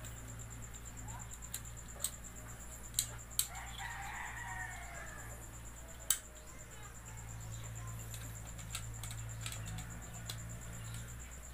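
A rooster crows once, starting a little over three seconds in. Around it come a few sharp clicks and taps of a screwdriver working the terminal screws of an electrical outlet, over a low steady hum.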